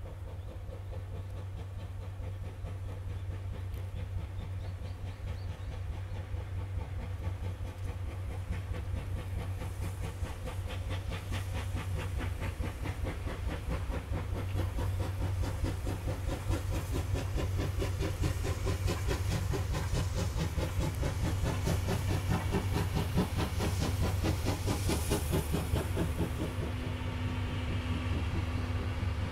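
C11 steam tank locomotive approaching and passing with its train, the exhaust chuffing in a fast, even rhythm and the wheels running on the rails. It grows steadily louder until the locomotive is level, about three quarters of the way through.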